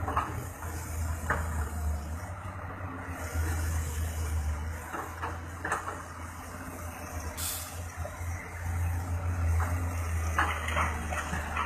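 Diesel engine of a Caterpillar 320C excavator running under load as it digs and swings to load a dump truck: a steady low rumble that swells and eases with the work, with a short hiss about seven seconds in.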